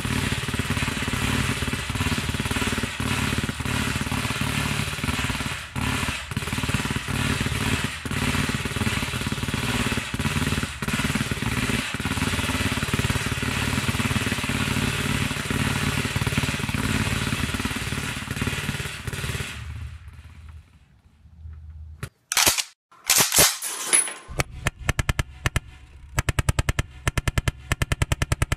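A loud, steady rattling noise cuts off about twenty seconds in. A few loud single cracks follow, then a full-auto pellet machine gun fires a fast, evenly spaced burst that runs on to the end.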